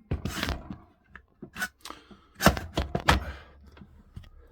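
Handling noise of things being moved about: a short rustle, then a run of sharp knocks and clatters, loudest about two and a half to three seconds in.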